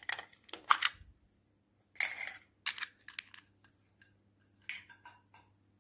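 Small plastic decorations and containers handled by hand: four short bursts of clicking and crinkling, the loudest in the first second.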